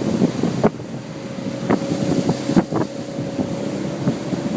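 Small motorboat under way, its motor holding a steady whine, with wind buffeting the microphone and a few sharp knocks, the loudest about a second in and near the middle.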